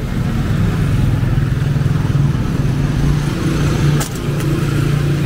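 Street traffic: a motor vehicle's engine running close by, a steady drone that grows stronger about halfway through, with one sharp click about four seconds in.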